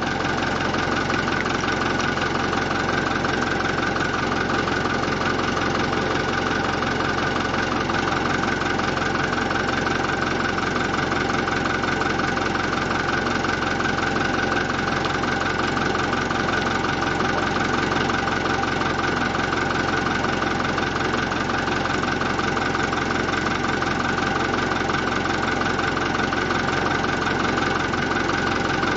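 Tractor diesel engine idling steadily at low revs.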